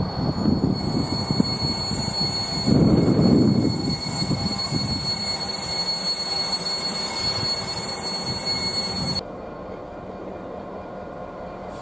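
A train running through the station: steady rumble and rail noise with a louder surge about three seconds in, the sound dropping off abruptly about nine seconds in.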